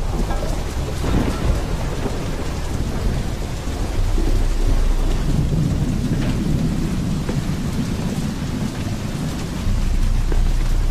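Film soundtrack of steady rain with a deep, continuous rumble of thunder, swelling a little about halfway through and again near the end.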